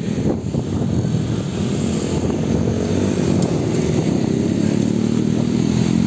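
A dense stream of motorbikes and scooters riding past, many small engines running together in a steady drone that builds a little over the first two seconds.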